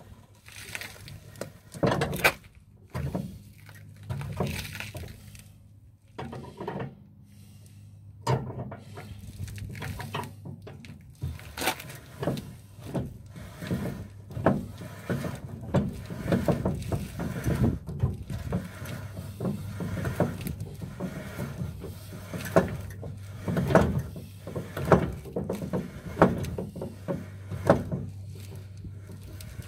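A pickup truck's underslung spare-tire winch being cranked down with the lowering tool: irregular clicks and knocks from the crank and hoist, over a steady low hum.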